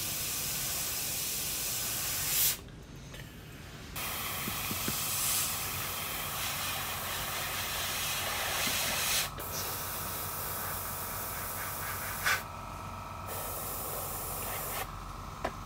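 Airbrush hissing as it sprays black paint for pre-shading on a plastic model. The air stops and restarts several times: a gap of over a second about two and a half seconds in, a brief break near nine seconds, and another pause after about twelve seconds.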